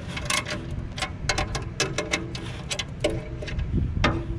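Offset box wrench clicking and clinking on the motor-mount adjusting bolt of an exhaust fan as it is turned to tension a loose V-belt. The clicks are irregular, over a steady low rumble.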